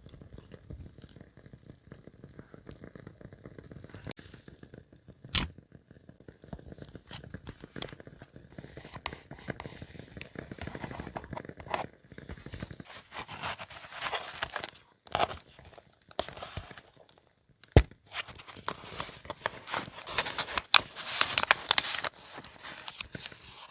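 Paper being handled, rustled and torn, with bursts of crinkling and two sharp clicks.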